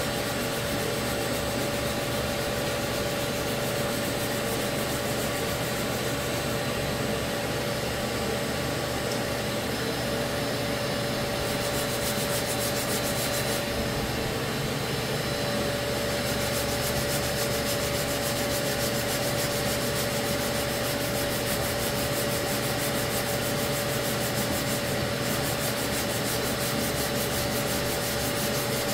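Abrasive rasping as body filler on a car panel is sanded with a dust-extraction sanding pad, over the steady hum of the extraction vacuum.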